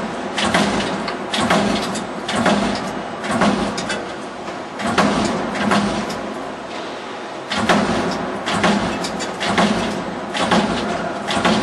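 Jiangsu Yangli CNC turret punch press running automatically: a stroke of the punch and sheet table about once a second over a steady machine hum, with a short pause a little past halfway.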